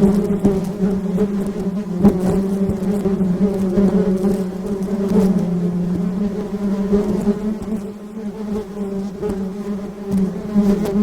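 Honey bees buzzing in a steady hum.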